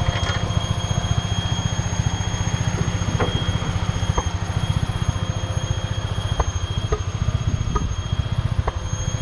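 Toyota Starlet's turbocharged 4E-FTE four-cylinder engine running at a steady speed, a fast even pulsing with a thin high-pitched whine held over it and a few short squeaks now and then.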